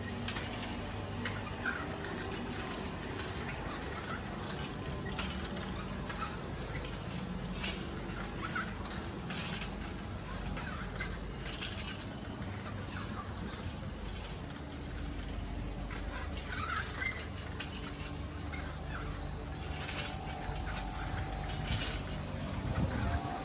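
Ambient sound of a residential lane while moving through it: a low steady hum underneath, with scattered short high-pitched chirps and a few brief knocks.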